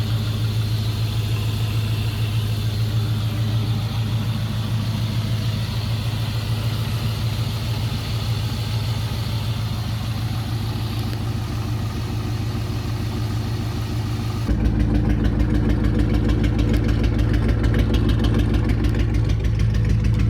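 1999 Ford Mustang GT's 4.6-litre two-valve V8 idling with a misfire in cylinder 3, traced to a failed coil pack and spark plug, heard through its aftermarket X-pipe and Borla catback. About fourteen seconds in the engine sound gets louder and fuller in the low end.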